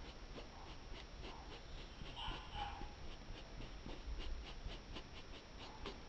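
Faint brush strokes on painted fabric: a paintbrush laying on sepia paint in short, repeated scratchy strokes, a few a second. A brief faint higher sound rises over them about two seconds in.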